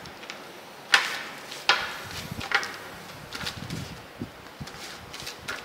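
A clear plastic sheet being handled and smoothed over a plastic tray: three sharp clicks in the first three seconds, then softer crinkles and taps.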